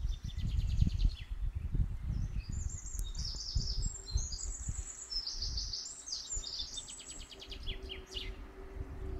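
Songbirds singing: high, quickly repeated notes and rapid trills, fullest from about two seconds in until near the end. Under them is an irregular low rumble with thumps on the microphone.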